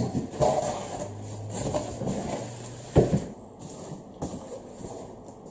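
Cardboard packing being moved around inside a large cardboard kit box: scraping and rustling handling noises, with one sharp knock about three seconds in.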